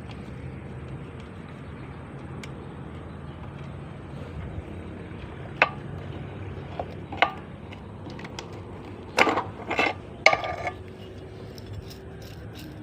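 Gearbox parts and hand tools clinking and knocking against each other as a manual transmission is taken apart: several sharp metal clinks, some ringing briefly, spread through the second half, over a steady low hum.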